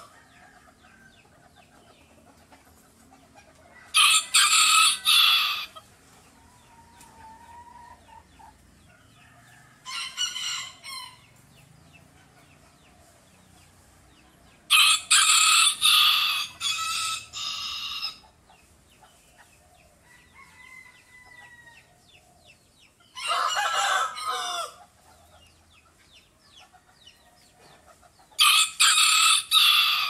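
A rooster crowing five times, several seconds apart. Each crow lasts one to three seconds, and the middle one is the longest.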